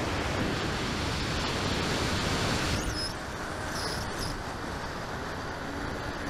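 Steady rush of air over the onboard camera's microphone of an RC plane in flight, with a faint steady hum from its electric motor and propeller.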